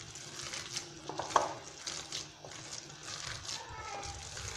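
A hand kneading and squeezing minced meat mixture in a bowl: faint, irregular soft squishing with a few light clicks against the bowl.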